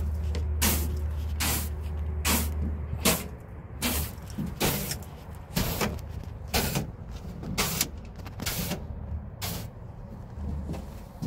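Broom swept in steady strokes across a van's bare metal floor, a short swish a little under once a second, with a low steady rumble under the first three seconds.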